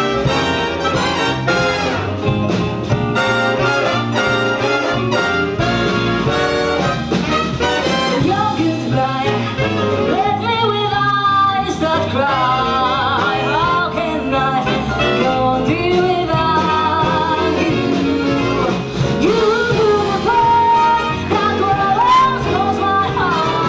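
Big band playing jazz live with a woman singing: the horns carry the first several seconds, then her voice leads over the band.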